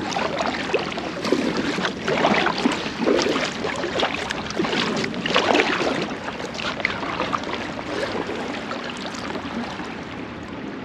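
River water splashing and rushing around an inflatable packraft, with many short irregular splashes.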